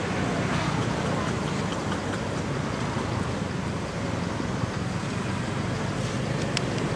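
Steady low outdoor rumble with no clear pitch, such as wind on the microphone or distant traffic, with a single sharp click near the end.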